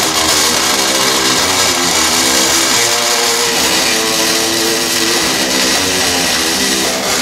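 Background rock music with electric guitar playing a changing melody.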